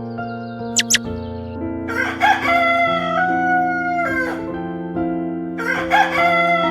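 A rooster crowing twice, once about two seconds in and again near the end, each crow a held call that drops off at the end, over background music with sustained notes.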